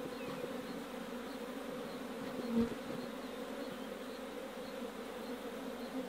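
Honeybee colony buzzing steadily around an opened hive, an even hum, with one brief louder note about two and a half seconds in.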